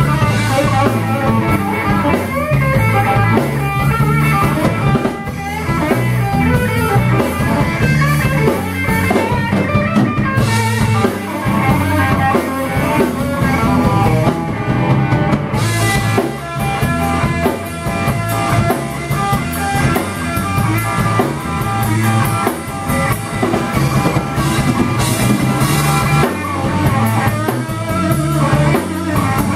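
Live rock 'n' roll band playing: Telecaster-style electric guitar over a drum kit, with no singing.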